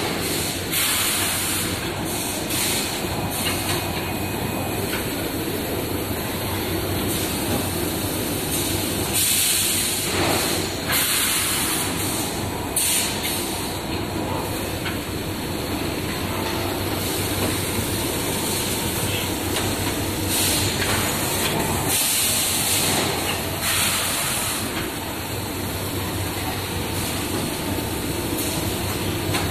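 Automatic woven-sack bagging machine running: a steady mechanical din with short bursts of compressed-air hiss every few seconds from its pneumatic bag-handling.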